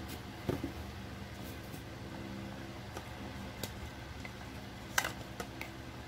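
Plastic parts of a homemade mini vacuum's motor housing being handled, giving a few sharp clicks and knocks, the loudest about five seconds in, over a steady low hum.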